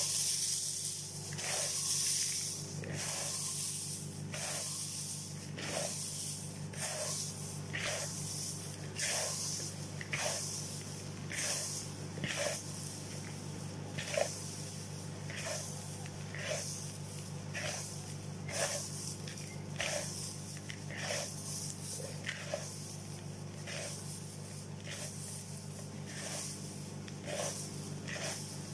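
Dry, crisp mint leaves crackling and rustling as they are crushed between fingers in a plastic bowl, in short irregular crunches about once or twice a second, over a steady low hum.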